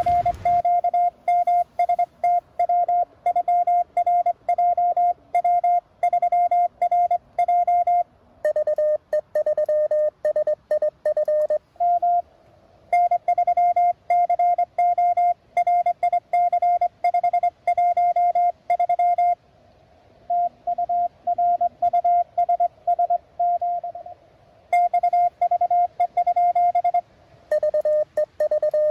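Morse code (CW) tones from a Mountain Topper MTR-4B QRP transceiver. Long runs of keyed sending at one steady pitch are broken twice, about eight seconds in and near the end, by another station's code at a slightly lower pitch.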